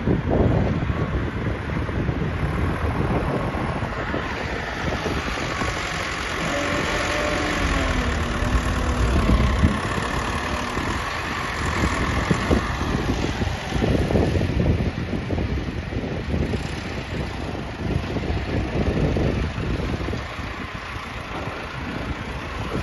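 Heavy machinery's diesel engine running, its loudness swelling and easing unevenly.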